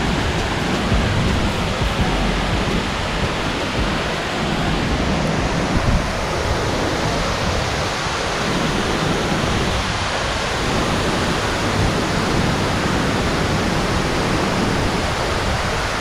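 Tall waterfall pouring down a rock face: a steady, loud rush of falling water that does not let up.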